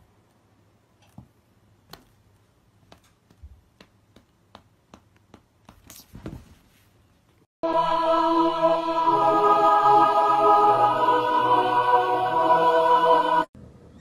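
Faint scattered clicks and taps, then about halfway through loud choir-like singing with many held notes starts abruptly, and it cuts off suddenly shortly before the end.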